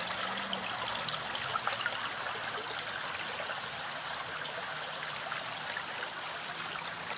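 Shallow stream running over stones: a steady rush of water, flecked with small splashes and trickles.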